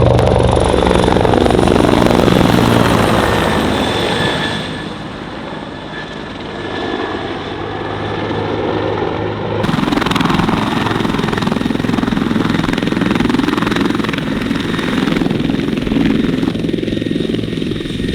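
Helicopter running close by: a steady, loud rotor throb with a high steady whine over it, easing off for a few seconds and growing louder again about ten seconds in.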